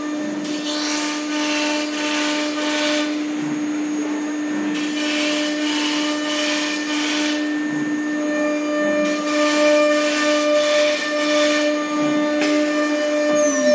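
ATC CNC router spindle running with a steady whine while its bit cuts a wooden panel. The cutting noise comes in three passes of a few seconds each. Near the end the whine starts to drop in pitch as the spindle slows.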